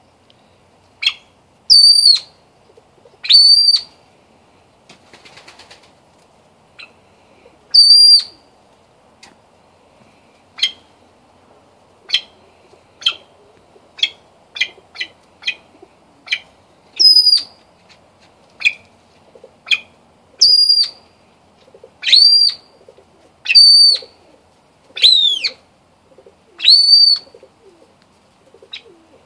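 Yellow golden pheasant hen calling: a long run of loud, high whistled peeps, each under half a second, some rising then falling. Shorter, softer chirps come in between.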